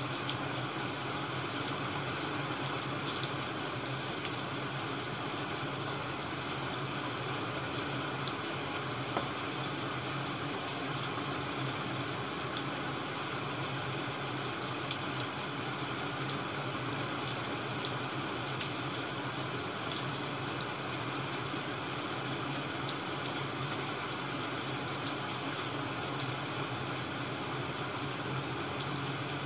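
Ambient rain and crackling wood fire sound track: an even, steady hiss with small pops and crackles scattered through it.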